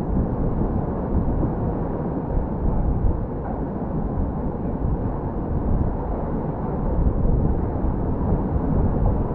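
Steady low rumbling noise picked up by the GoPro Hero8's microphone, with no distinct events.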